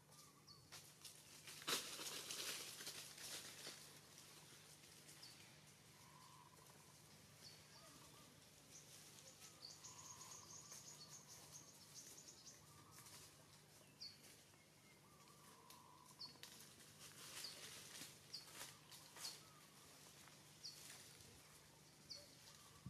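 Faint outdoor tree ambience: leaves and twigs rustle in short spells, with short high bird chirps every second or two.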